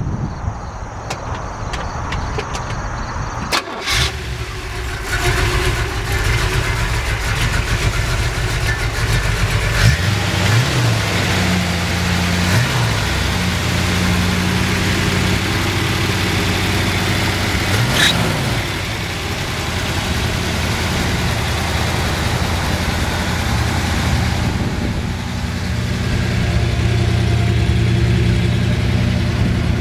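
A 1964 Chevrolet Impala SS's freshly rebuilt 327 cubic-inch, 300 hp small-block V8 starts about four seconds in and then idles, with three short throttle blips that rise and fall in pitch.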